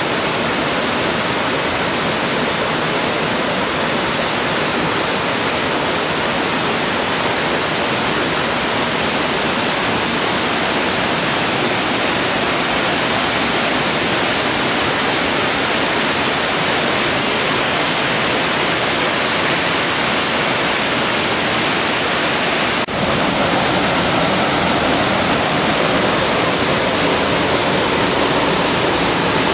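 Small waterfall pouring over boulders into a plunge pool: a loud, steady rush of falling water. It breaks off for an instant about two-thirds of the way through, then runs on.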